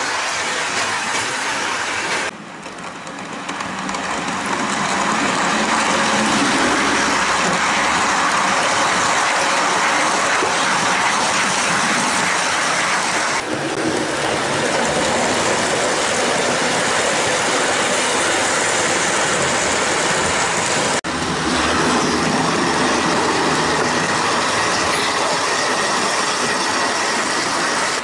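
HO-scale model train, a Jouef BB 67349 locomotive hauling passenger coaches, running past close by: a steady rattle of its wheels rolling over the track. The sound breaks off abruptly a couple of times.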